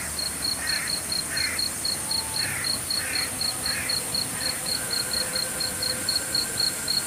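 Forest insects chirping in a fast, steady pulse of about five a second over a high, even insect hiss. Another animal gives a short, repeated call about twice a second, which stops about halfway through.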